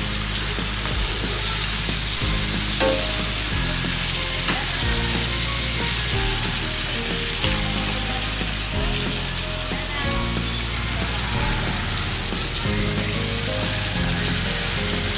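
Battered chicken pieces deep-frying in hot oil in a wok, a steady crackling sizzle, as a slotted metal skimmer stirs and lifts them. Background music with a bass line plays underneath.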